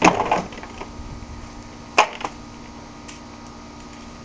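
Short clicks and knocks of small engine parts being handled: a quick cluster right at the start and a single sharp click about two seconds in.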